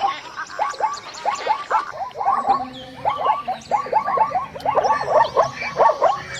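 A rapid run of short, repeated croaking animal calls, several a second, with faint high chirps above them.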